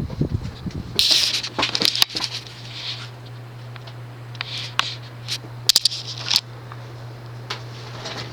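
1984 Murray Feiss ceiling fan motor humming steadily on high speed. Scattered light clicks and rattles and a few brief rustling noises sound over the hum.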